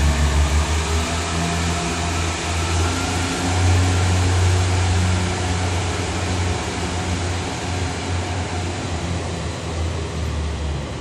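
Two coupled Class 143 Pacer diesel multiple units pulling away, their underfloor Cummins diesel engines running under power with a steady low drone. The sound slowly fades as the train draws off.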